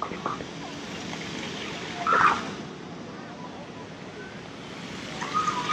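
Steady hiss of spraying plaza fountains, with people's voices in the distance and a short voice about two seconds in.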